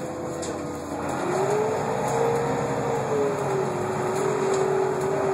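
Irisbus Citélis 12 bus drivetrain with Voith automatic gearbox pulling away, heard from inside the cabin: a whine rises in pitch about a second in as the bus accelerates, holds, then eases down a little and stays steady over the running rumble.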